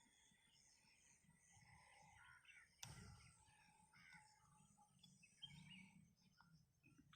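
Near silence: faint outdoor ambience with distant birds calling, and a single sharp click about three seconds in.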